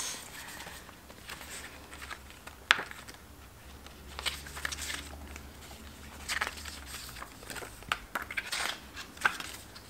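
Paper and card rustling with light handling clicks as the pages of a CD media book's booklet are turned, with one sharper click a little under three seconds in.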